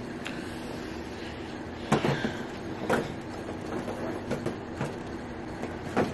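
Q-Redew handheld hair steamer running with a steady hiss and hum, with a few sharp taps and knocks of the device being handled about two, three and six seconds in.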